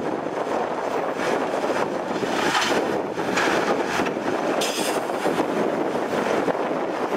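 Heavy diesel machinery running steadily: a Komatsu PC210 excavator working its bucket against the load of a dump truck that is tipping out soil. Several brief hissing rushes come through over the engine noise in the first five seconds.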